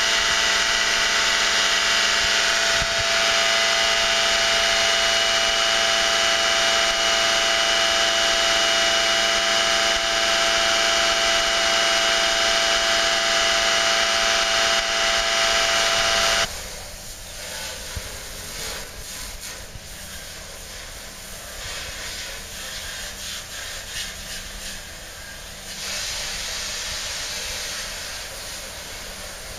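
A winery pump running loudly and steadily, with a whine of several steady tones, as it circulates grape must through hoses in a vat. It cuts off suddenly about halfway through, giving way to a much quieter outdoor hiss with scattered light knocks.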